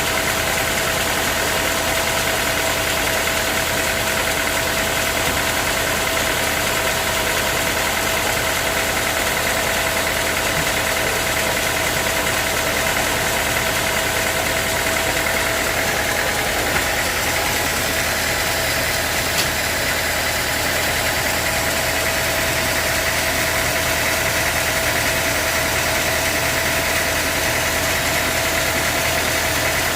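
Sawmill machinery running steadily, a constant mechanical din with a steady high whine over it.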